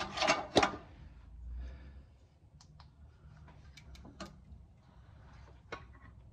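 Scattered light clicks and knocks, two louder ones in the first second and then single faint ticks, as a ratchet and a work light are handled and set in place under a car.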